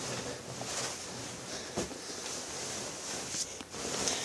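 Soft rustling of bedding and a pillow as someone shifts and settles in bed, with a few light knocks and a steady hiss.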